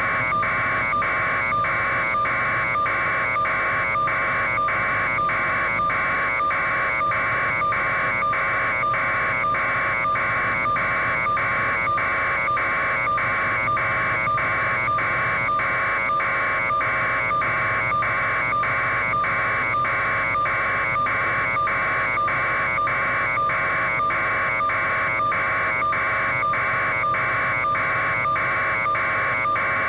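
Steady electronic buzzing that pulses evenly about twice a second, over a constant hum, with no change in level.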